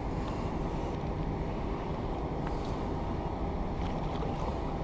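Steady rumbling noise of wind and sea surf, with a few faint ticks.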